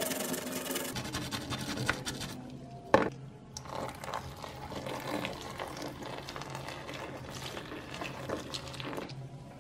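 Tap water pouring into a tub of soapy, foamy water, with one sharp knock about three seconds in.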